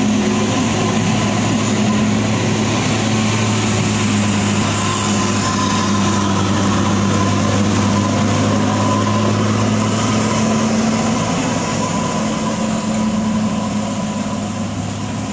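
Hino tanker truck's diesel engine running at a steady pitch as it works slowly round a steep hairpin, a loud steady drone with tyre hiss on the wet road. It eases a little near the end as the truck moves away.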